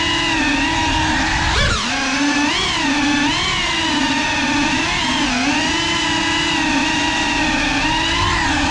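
FPV drone's brushless motors and propellers whining steadily. The pitch wavers up and down with the throttle, with a quick upward swoop and a low thump about one and a half seconds in.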